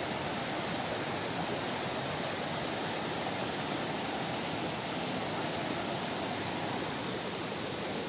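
Steady rush of a rocky mountain stream and waterfall, water pouring over and between boulders.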